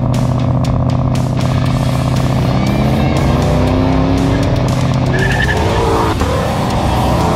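Shelby Mustang V8 engines running on a highway cruise, their pitch rising and falling as cars pull up alongside, with background music.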